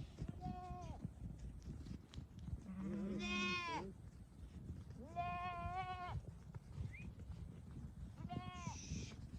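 Sheep and goats bleating: four separate bleats, one shaky and trembling, over a low crackling background.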